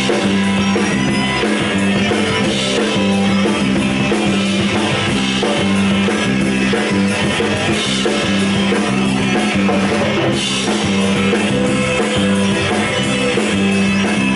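Live rock band playing an instrumental passage: electric guitars, bass guitar and drum kit together, with no singing.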